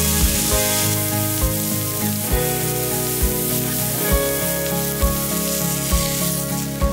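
Beef steak sizzling on a griddle plate over a wood fire, the hiss strongest in the first second. Background music with a steady beat plays throughout.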